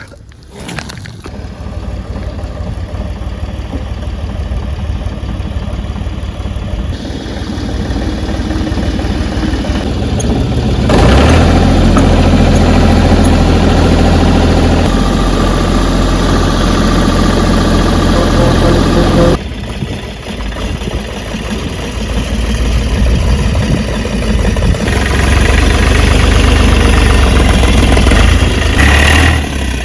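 Engine running under changing load, its pitch and level shifting. It settles into a loud, steady run about eleven seconds in, drops off suddenly just past the middle, then builds again.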